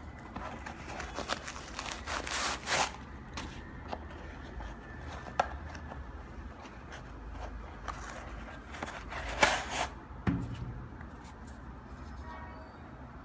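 Hands handling a Nike Air VaporMax Flyknit sneaker: rustling and scraping of the knit upper and laces, with a few sharp clicks. A louder scraping rub and a soft thump come near the end, as the insole is pulled out of the shoe.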